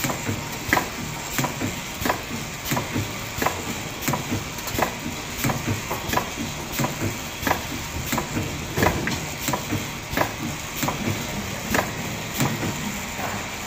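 Explosion-proof bottle filling and capping machine running: a steady mechanical hiss and hum with sharp clacks repeating at an even pace, about three every two seconds, as the line works through the bottles.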